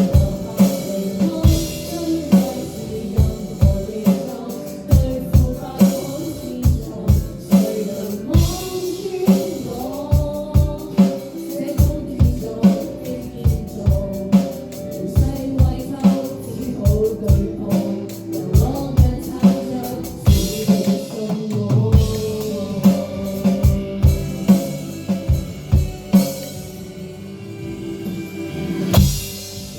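Band music with a steady drum-kit beat of kick and snare over sustained instruments. The drum hits drop away for a few seconds near the end, then a swell leads back in.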